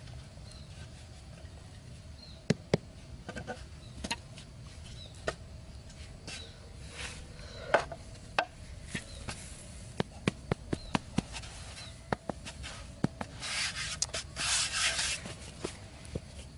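Scattered sharp taps and clicks as a curved roofing-sheet trap and a hatchet are handled on dry ground, then a few seconds of scraping and rubbing near the end.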